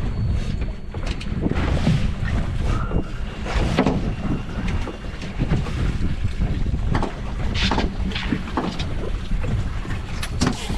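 Wind buffeting the microphone aboard a small fishing boat at sea, a steady low rumble with scattered knocks.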